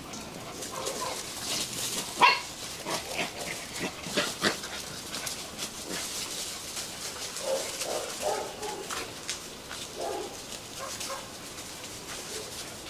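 White Bắc Hà puppies giving short yips and small barks as they play, with the scuffle of paws on the ground between calls. The loudest yip comes about two seconds in, and a cluster of calls comes after seven seconds.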